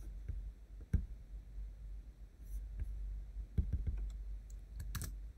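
Scattered clicks of a computer mouse and keys while working in a code editor: a sharp click about a second in, a few more around three and a half seconds, and a quick pair near the end.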